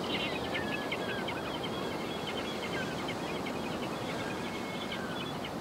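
Seaside ambience: a steady wash of surf noise, with a rapid, high-pitched chattering call running over it that stops near the end.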